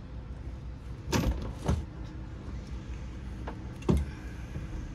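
A few short knocks and clicks from handling the plastic-and-metal port light window, its hinged clear lens being lifted against the frame, over a steady low hum.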